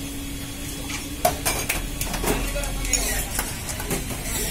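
A steel spoon clinking and scraping against steel bowls and a stainless-steel counter, in irregular sharp clinks, the loudest about a second in.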